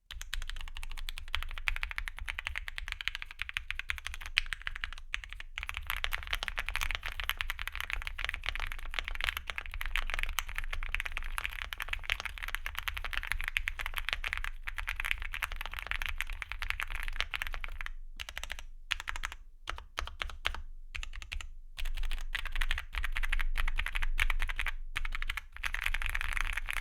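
Typing on an Akko MOD007 v3 mechanical keyboard with factory-lubed Gateron Milky Yellow Pro linear switches, an FR4 plate, lubed stabilizers and Cherry-profile PBT keycaps: a fast, continuous stream of keystrokes, broken by a few short pauses about two-thirds of the way through.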